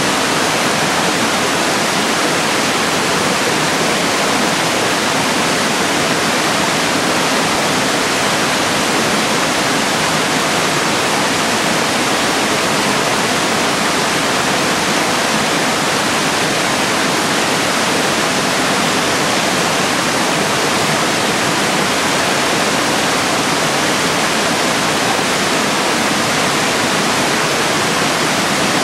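Stream water rushing steadily over small rock cascades, a loud, even, unchanging hiss.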